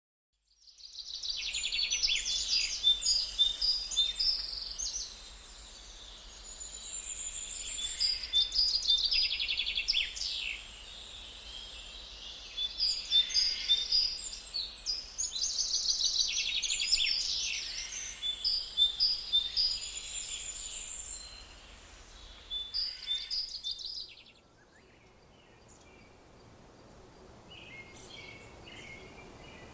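Birdsong: repeated phrases of high chirps and quick trills, several calls overlapping. About 24 seconds in, it cuts off abruptly to a quieter stretch with only faint chirps.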